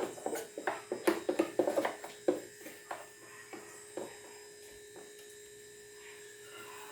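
A quick run of small clicks and knocks, as of metal parts and tools being handled on a lawn mower under repair, thinning out about four seconds in, over a faint steady hum.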